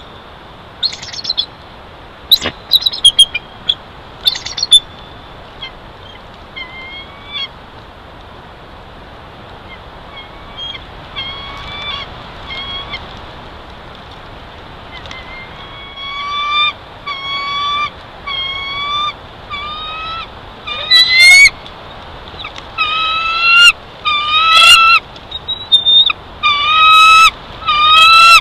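Bald eagles calling at the nest: a few sharp, high chirps near the start, then series of high, repeated chittering notes that come more often and grow louder through the second half.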